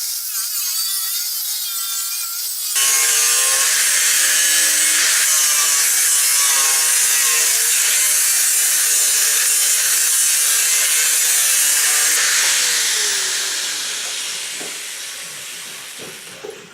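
A power cutting tool running and cutting through the rusted sheet-steel floor tunnel of a VW Type 181 Thing, with a high, hissing whine that wavers under load. It gets abruptly louder about three seconds in, then fades and winds down over the last few seconds.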